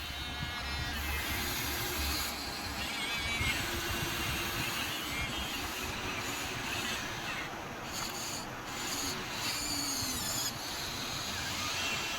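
Small electric motors and plastic-and-metal gearboxes of a Huina 1593 1/14-scale RC excavator whirring as it works, the whine shifting in pitch as its functions start and stop.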